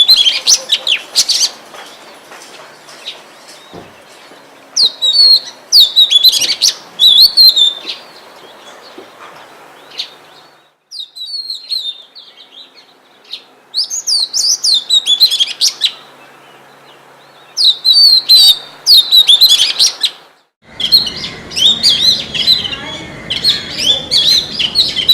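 Oriental magpie-robin (kacer) singing: bouts of quick, varied whistled notes separated by pauses of a few seconds. After a brief dropout about twenty seconds in, the song runs on without a break over a steady background hiss.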